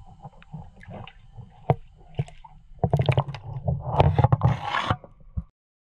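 Lake water sloshing and splashing around a camera held half under the surface, with scattered knocks and rubs on its housing, as a big perch is let go and swims off. The splashing is busiest and loudest from about three to five seconds in, then the sound cuts off suddenly.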